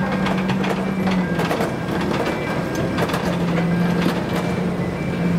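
A heavy vehicle moving slowly, with a steady low engine hum that dips slightly in pitch about a second in, and irregular metallic clicks and clanks over it.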